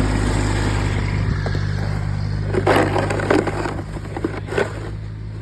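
Kubota BX1800 compact tractor's three-cylinder diesel engine running steadily, dropping in pitch about a second in and slowly fading. A few sharp knocks come in the middle.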